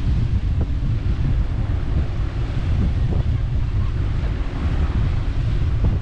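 Wind buffeting the microphone: a constant, fluttering low rumble with a lighter hiss above it.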